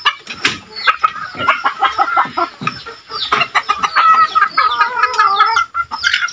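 A flock of chickens calling over one another in many short, quick calls, with one longer drawn-out call from about four seconds in.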